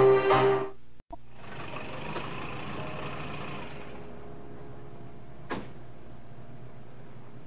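A music cue ends just under a second in, then a car engine idles steadily. A car door shuts about five and a half seconds in.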